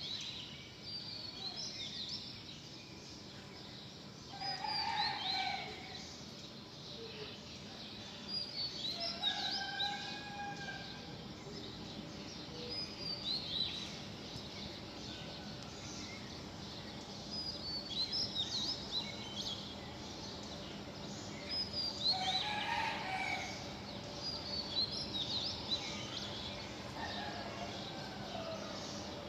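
Birds chirping and singing: short phrases of quick, falling high notes every few seconds, with an occasional lower call, over a steady background hiss.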